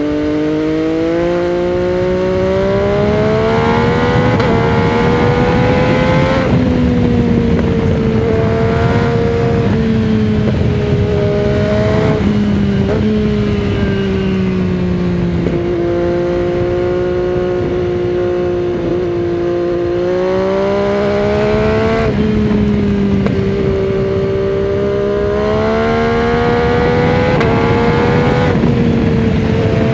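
MV Agusta Dragster 800 RR's three-cylinder engine through a Fresco Trio Corse exhaust with dB-killer fitted, pulling under throttle at road speed. Its pitch climbs and drops back sharply several times, over steady wind rush.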